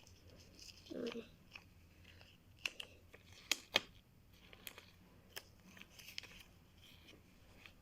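Faint rustling and scattered clicks of hands stuffing fur into a cut rubber balloon, with a few sharper snaps a little over three seconds in.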